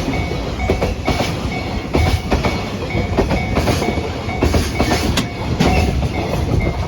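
A freight train hauled by an EF210 electric locomotive passing over a level crossing: a steady rumble with its wheels clacking repeatedly over the rail joints, and a level-crossing warning bell ringing evenly behind it.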